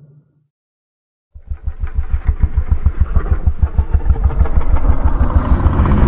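A rapid, low, engine-like pulsing that starts suddenly after about a second of silence and grows louder, with a short hiss near the end.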